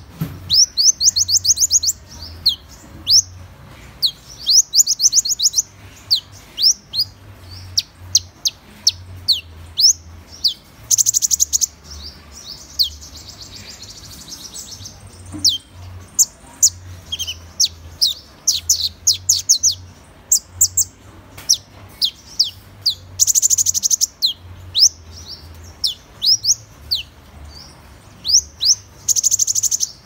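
Van Hasselt's sunbird (purple-throated sunbird, Leptocoma brasiliana) singing: fast runs of high, thin, down-slurred notes alternate with single sharp chips, with a few short buzzy bursts among them.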